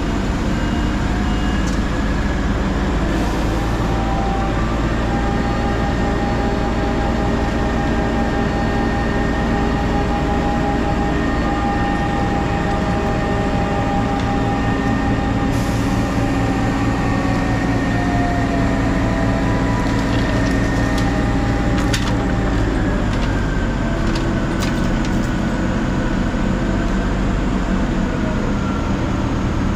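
Liebherr LTM1350-6.1 mobile crane's diesel engine running steadily with a whine over it, the pitch dipping slightly and recovering about three-quarters of the way through. A few light clicks sound now and then.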